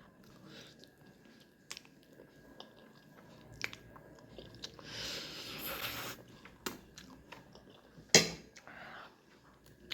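Close-up eating sounds: chewing and biting with small mouth clicks, a hiss-like sound lasting about a second around five seconds in, and a sharp knock a little after eight seconds, the loudest sound.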